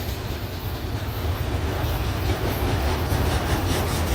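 Empty auto rack freight cars rolling past: a steady rumble of steel wheels on rail, with a few faint wheel clicks.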